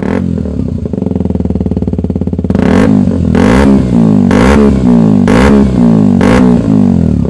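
The 2013 KTM 125 Duke's single-cylinder four-stroke engine idles through a Lextek XP10 silencer with no baffle. About two and a half seconds in it is revved in five quick blips, a little under a second apart, each rising and falling back to idle.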